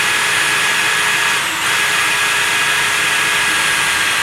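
Electric drill running steadily with a freshly sharpened twist bit cutting a test hole, with a brief dip about a second and a half in. The re-sharpened bit eats right through.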